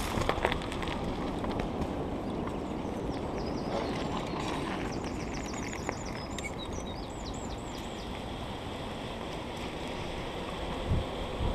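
Wind rushing over the microphone and tyre noise from a bicycle rolling along a tarmac path, with a few knocks right at the start. About three to five seconds in, a bird sings a quick run of short, high repeated notes.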